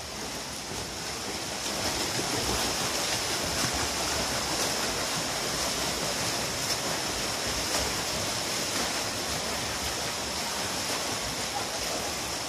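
Steady splashing and churning of water from swimmers sprinting front crawl in a pool, getting a little louder about two seconds in as the strokes get going.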